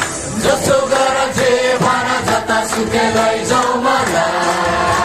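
Music played through a hall's PA system: a backing track with a steady beat and a sung vocal line, the start of a rap performance.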